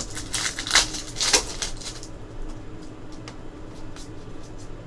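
Baseball trading cards flipped through by hand, their edges sliding and flicking against each other. A quick run of rustling swishes comes in the first second and a half, then fainter ticks.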